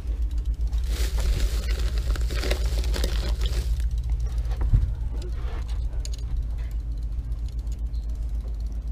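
A charter boat's engine idling with a steady low hum. A rushing noise rises over it from about one to four seconds in, and there is a single knock near five seconds.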